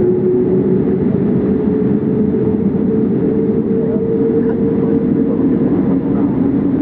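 Cabin noise of an ANA Boeing 787-8 on the ground: its Rolls-Royce Trent 1000 engines give a steady rumble and hum. A tone in the hum rises a little, then drops lower near the end.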